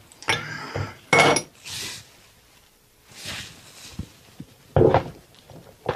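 Steel hand tools clinking and knocking against each other and the aluminium pump housing as a socket wrench and bar are picked up and fitted onto a bolt. There are several separate clinks, the loudest with a brief metallic ring a little over a second in.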